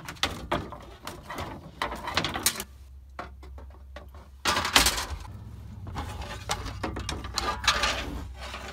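Irregular clatter, scraping and rustling as an electrician's fish tape (snake) is fed down through an attic toward a soffit opening, with a sharp knock about five seconds in and a low steady hum under the second half.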